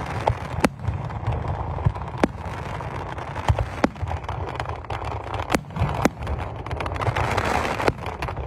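Fireworks display, with fan cakes and aerial shells firing: about a dozen sharp bangs at uneven gaps of half a second to a second, over a continuous hissing crackle.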